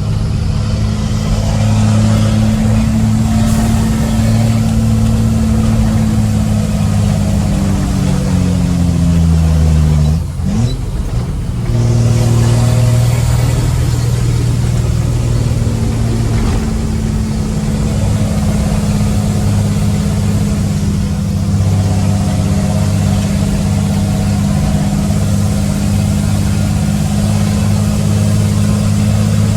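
Ford Cargo dump truck's diesel engine with a short straight-pipe exhaust, heard through a part-open cab window as the truck pulls. The revs slowly fall for a few seconds, then about ten seconds in there is a brief dip for a downshift. After that the engine pulls steadily again.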